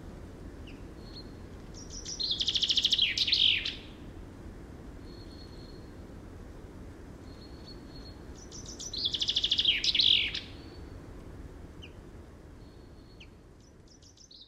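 A small songbird singing two short, rapid trilled phrases that end in falling notes, about six seconds apart, with faint single whistled chirps between them. Underneath runs a steady low rush of outdoor ambience that fades out near the end.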